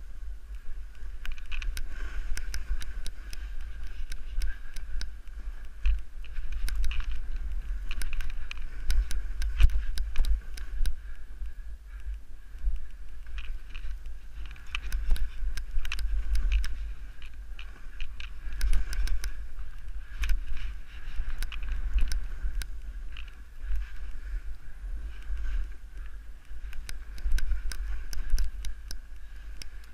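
Wind buffeting a mounted action camera's microphone during a downhill run through deep powder snow, a heavy rumble that swells and eases, with the hiss of snow under the rider and frequent small clicks and knocks.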